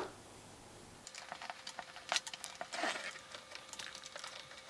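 Faint, scattered small metallic clicks and clinks of a small Allen key and M5 bolts being handled and turned into the 3D printer's frame extrusion, starting about a second in, with a brief rustle near three seconds.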